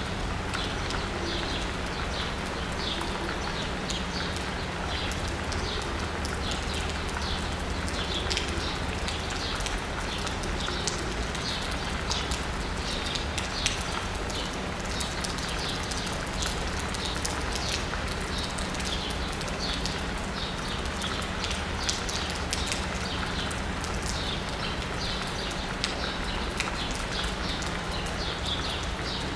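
Steady rain pattering on asphalt and rooftops, with birds chirping in short repeated calls throughout and occasional sharper drips. A low steady city hum sits underneath.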